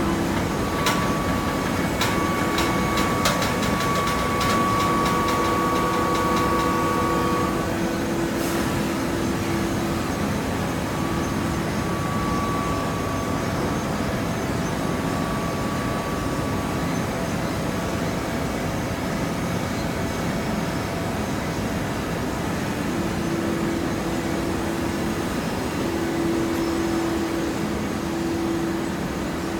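Hydraulic baler running: a steady mechanical hum with a whine from the hydraulic pump, and a series of sharp metallic clicks in the first few seconds and once more about eight seconds in.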